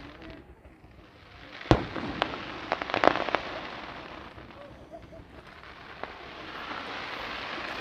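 Fireworks shells bursting: one loud bang a little under two seconds in, then a quick cluster of sharp cracks about a second later, and a few fainter pops after that, over a steady hiss.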